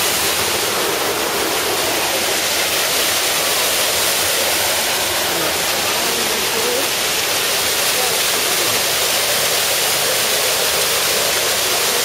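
Small garden waterfall pouring over rocks into a pond: a steady rush of falling, splashing water.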